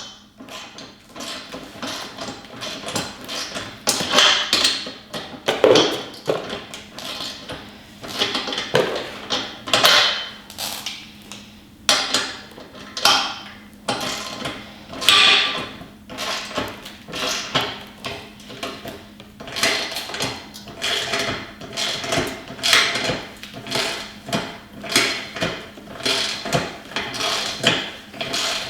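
Ratchet wrench tightening a nut on a steel hitch bolt: repeated strokes of metallic clicking and clinking, roughly one a second.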